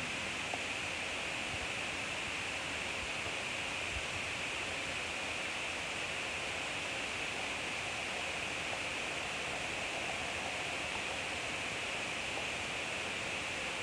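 Meat and shrimp skewers sizzling on a hot grill: a steady, even hiss.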